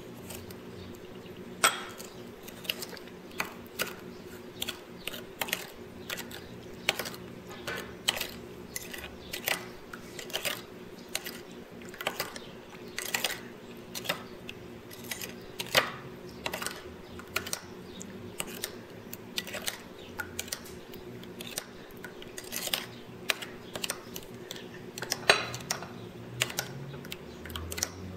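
Metal spoon stirring a sauce in a small ceramic bowl, clinking and scraping against the sides in irregular light clinks about one or two a second. A steady low hum runs underneath.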